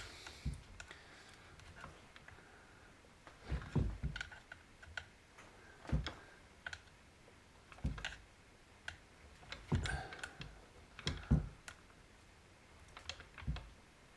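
Scattered light clicks and knocks, about a dozen spread irregularly, from small chainsaw parts being handled: the choke lever and a rubber grommet being worked into the plastic housing of a Husqvarna 266/268 saw.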